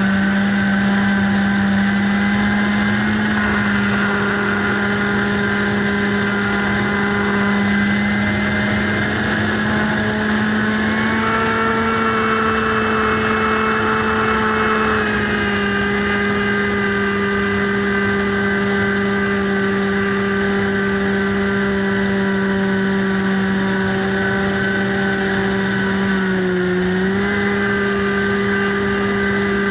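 Motor and propeller of a radio-control FPV plane in flight, heard from its onboard camera: a steady pitched drone that climbs slightly in pitch about a third of the way in, then settles, and dips briefly near the end.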